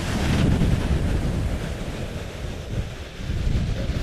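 Wind buffeting the microphone in an uneven low rumble, over the steady wash of ocean surf breaking on the beach.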